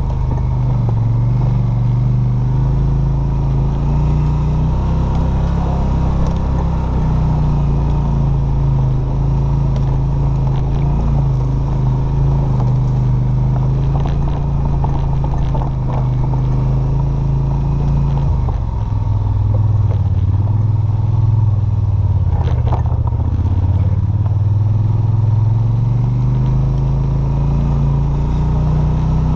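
ATV engine running at low trail speed, its steady hum dropping in pitch about two-thirds of the way through and rising again near the end. A few clatters and scrapes come from the machine rolling over the rough woodland trail.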